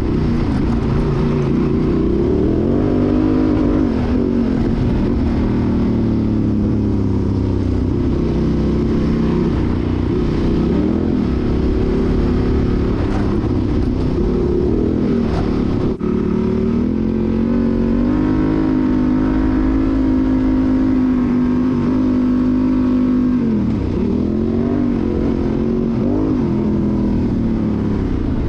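Honda XL750 Transalp's parallel-twin engine, breathing through a Mivv Dakar exhaust with an Arrow decat, running under varying throttle while being ridden: the pitch rises and falls with the throttle, holds steady for several seconds past the middle, then drops sharply and picks up again near the end.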